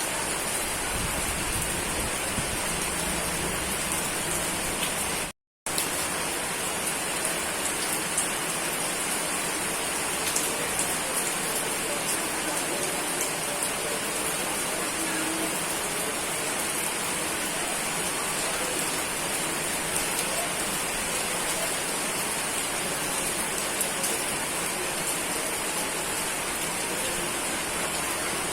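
Steady heavy rain: a dense, even hiss with scattered sharper drop ticks. The sound cuts out completely for a split second about five seconds in, then resumes unchanged.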